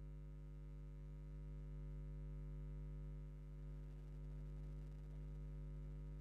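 Steady low electrical hum inside a passenger train carriage: a stack of several even tones that does not change, with no rail clatter or other sounds over it.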